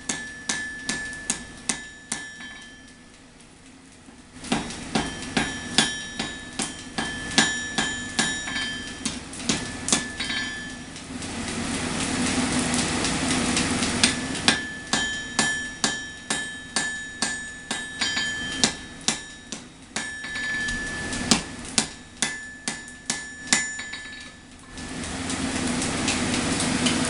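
Power hammer striking a hot Damascus billet of layered high-carbon and mild steel to draw it out, about two blows a second with a ringing metallic tone, in several runs. Between runs there is a steady rushing noise.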